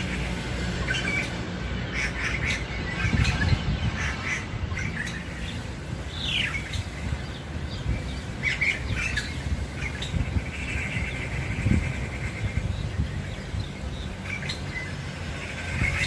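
Long-tailed shrike (pentet) calling over and over with harsh squawks and chatter, including a downward-sliding call about six seconds in and a longer buzzy run a little later.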